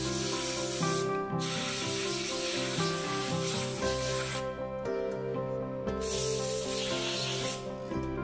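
Compressed-air blow gun hissing in three long blasts as it blows dust out of an opened angle grinder's motor housing and brush holders, over background music.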